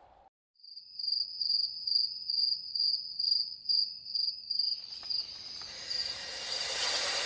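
Cricket chirping: a high, steady trill pulsing a little over twice a second, opening a music track as a nature-sound intro. Over the last two seconds a rising whoosh of noise swells in.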